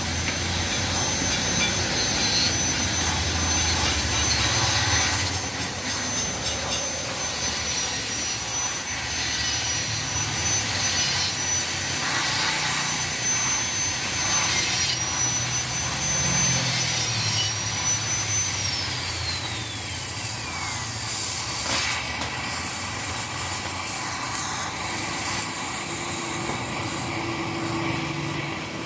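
Gas cutting torch running with a steady roaring hiss as it cuts through the first internal baffle inside a motorcycle muffler. A thin high whistle holds steady through most of it, then slides down in pitch about two-thirds of the way through.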